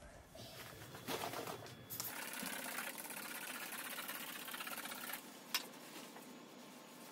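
A cloth rubbing across a marble tabletop, polishing it: a soft, steady wiping noise that begins about a second in and stops about five seconds in, with a couple of short sharp sounds near the start and a brief click after it stops.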